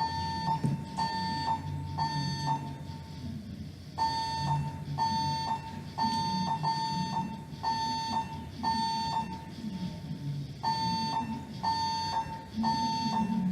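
Voice-evacuation fire alarm system sounding its evacuation tone during an alarm test: short high-pitched electronic beeps about two a second, in groups with brief pauses between them.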